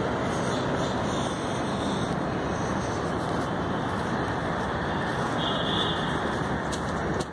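Steady, even rushing background noise outdoors, with a brief faint high tone about five and a half seconds in.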